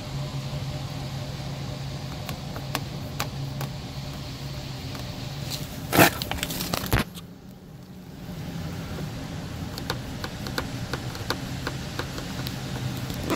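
Close-up handling noise of a hand-held camera microphone: scattered small clicks and a loud rustling bump about six seconds in, over a steady low hum.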